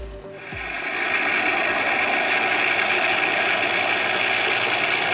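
Engine of a large RC scale Hawker Hurricane model running steadily on the ground with its propeller turning, coming up within the first second.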